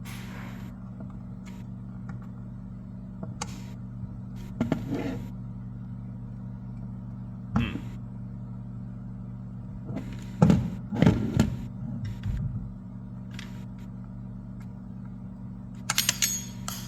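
Scattered knocks and clicks of a cordless crown stapler and its plastic belt hook being handled, over a steady low hum. The loudest cluster of knocks comes about two-thirds of the way through.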